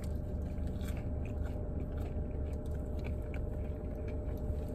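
A person biting into and chewing a pressed Cuban sandwich, the crisp-pressed bread crunching faintly in short scattered crackles, over a steady low hum.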